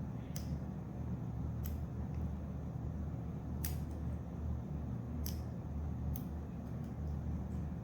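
Lock pick working the pins inside a Paclock PL410-PRO padlock: five faint, sharp clicks at uneven intervals, over a steady low hum.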